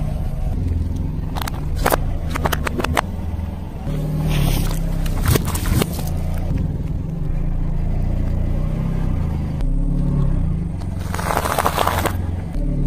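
Car engine running low while a tyre rolls slowly over objects on asphalt and crushes them. Sharp crunches and crackles come in bursts, first from packs of dry instant noodles, then from drink cartons. A denser crackle comes near the end as the tyre rolls onto a pile of small balls.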